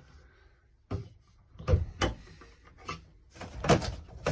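Trailer cabinet doors being opened and shut by hand: a run of five or six sharp knocks and clacks of the doors and hinges.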